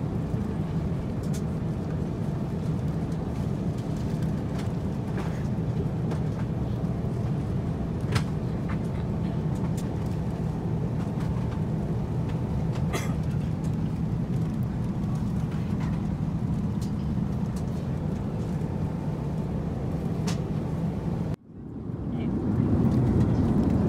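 Steady low rumble of airliner cabin noise inside an Airbus A350-900, with a few faint clicks. Near the end the sound cuts out for a moment and comes back louder.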